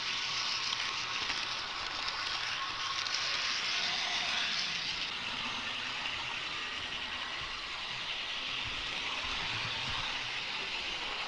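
HO-scale model train running along the track, heard from a camera riding on it: a steady rattling hiss of small metal wheels on the rails.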